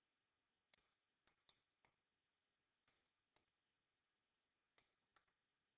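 Near silence broken by about seven faint, sharp clicks, scattered irregularly, from a stylus tapping as numbers are hand-written on a computer screen.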